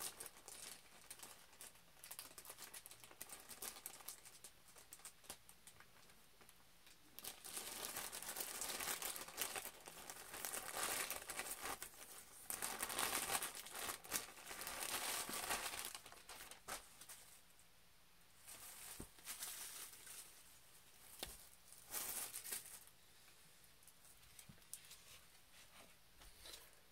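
Plastic poly mailer bag being snipped open with scissors and then crinkled and rustled as it is handled and opened, the crinkling loudest through the middle and coming in shorter bursts later.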